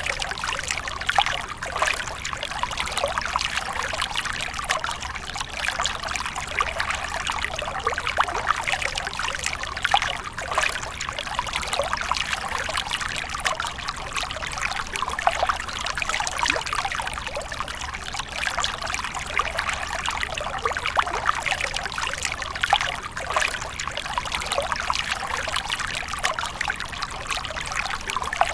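Water splashing and trickling steadily, a continuous wash of many small splashes.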